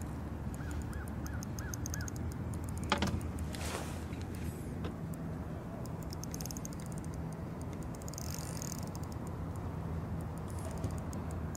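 Shimano Stella 2500 spinning reel ticking in short quick runs, several times, with a single knock about three seconds in, over a steady low hum.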